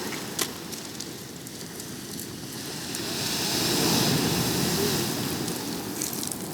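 Ocean waves washing in: a steady rush of surf that swells to a louder wave about three to four seconds in, then eases off.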